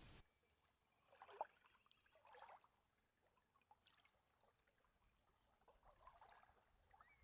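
A steady hiss cuts off right at the start, leaving near silence with faint small waves lapping and trickling at the water's edge of a sandy shore.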